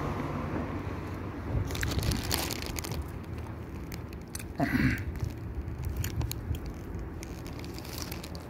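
Crunching and crackling close to the microphone, typical of someone eating a crunchy snack, with a louder hissy stretch about two seconds in and a short falling sound about halfway through.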